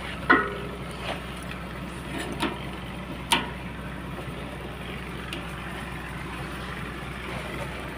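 Hand-pumped hydraulic bottle jack bending a steel plate into a cone: a few scattered metal clicks and knocks, the sharpest about three seconds in, over a steady low machine hum.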